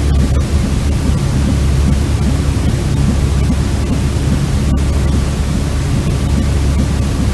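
Continuous white noise played for soothing a baby to sleep, a steady even rush weighted toward the low end, with one tiny break in the hiss near five seconds in.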